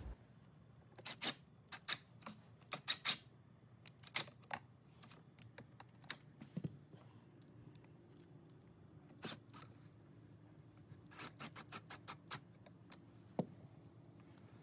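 Faint, irregular light clicks and taps as a PVC door jamb repair piece is handled and worked into place by hand.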